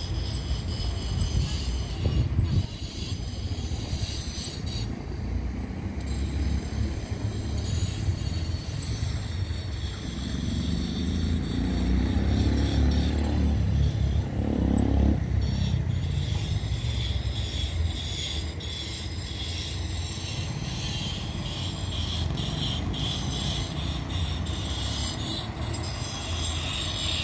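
Street traffic: a steady low engine rumble, with a vehicle passing louder about ten to sixteen seconds in, rising and then fading away.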